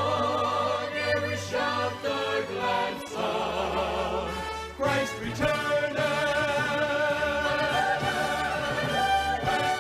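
Gospel vocalists and choir singing with orchestral accompaniment. The voices have a wide vibrato and settle into a long held chord about six seconds in.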